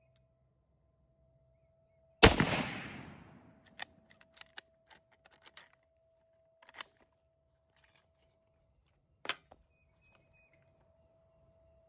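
A single rifle shot from a Carcano M91 cavalry carbine about two seconds in, with a long echoing tail. Several small metallic clicks and knocks follow, and one sharper knock near the end.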